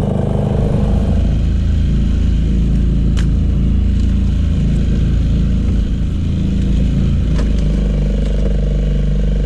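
Outboard boat motor running steadily at trolling speed, a low even drone, with a few sharp clicks about three, four and seven and a half seconds in.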